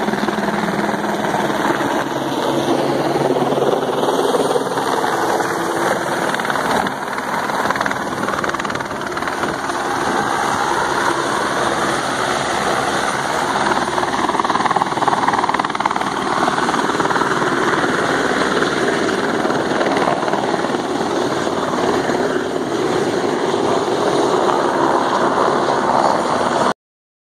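Fishing boat's engine running with wind and water rushing past, a steady loud noise that cuts off suddenly near the end.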